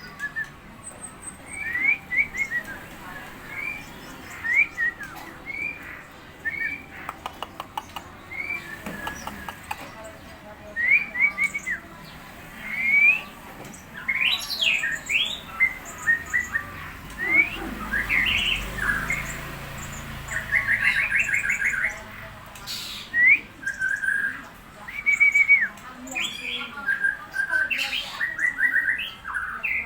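A tame murai songbird singing in short, varied whistled chirps and phrases, with a quick rattling run of notes about two-thirds of the way through.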